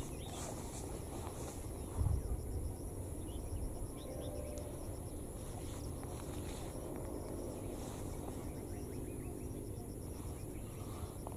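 Outdoor ambience of insects: a steady high-pitched drone and a regularly pulsing chirp, over a constant low rumble, with a brief thump about two seconds in.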